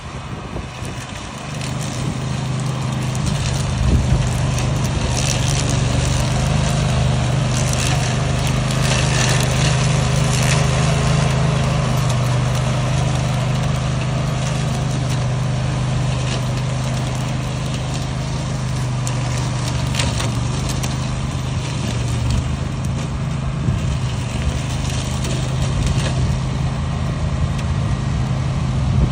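Briggs and Stratton petrol engine of a remote-control flail mower running steadily, swelling louder over the first couple of seconds and then holding. Scattered crackles and knocks come through in the first half.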